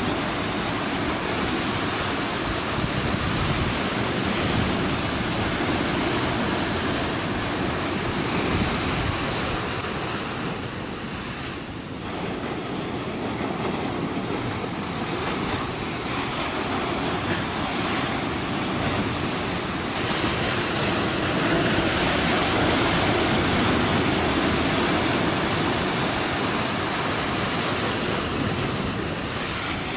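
Sea surf washing against a rocky shore: a steady rushing that dips briefly about eleven seconds in and swells again about twenty seconds in, with some wind on the microphone.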